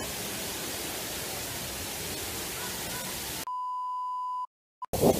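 Steady rushing of a waterfall. About three and a half seconds in it cuts to a steady high test-tone beep of about a second, followed by a brief dead silence.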